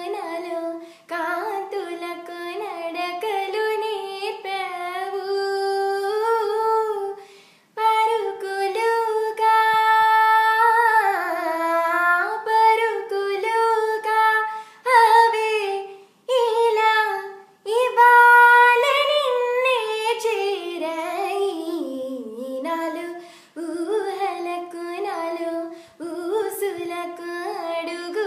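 A teenage girl singing an Indian song solo and unaccompanied, her melody sliding and curling through ornamented held notes, with short breaks for breath between phrases.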